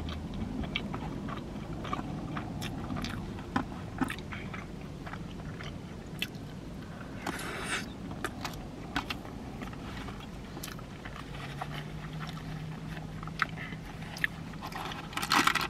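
Close-up sound of someone eating animal-style fries: chewing with scattered soft mouth clicks, and a brief scraping noise about halfway through.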